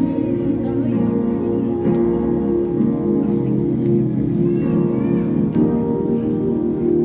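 Music sung by a group: many voices holding long, layered notes, some wavering higher up.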